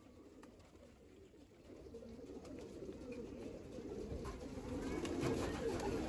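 Domestic pigeons cooing, faint at first and growing louder from about two seconds in.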